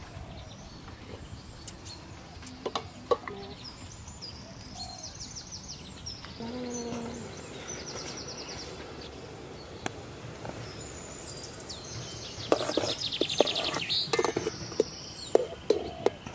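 Birds chirping with high rapid trills, several times, busiest near the end. Scattered sharp clicks and light knocks come from hands working with banana leaves and kitchen utensils.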